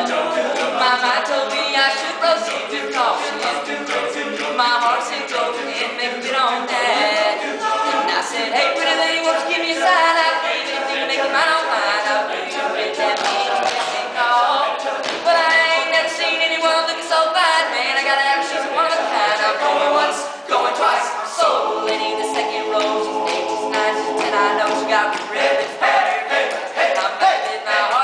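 All-male a cappella group singing in harmony, voices only with no instruments, dipping briefly about twenty seconds in before carrying on.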